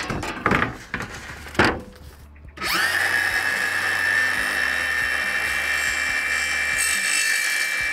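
A few clicks and knocks, then about two and a half seconds in a cordless circular saw fitted with an aluminium-cutting blade starts up with a brief rising whine and runs at a steady high pitch.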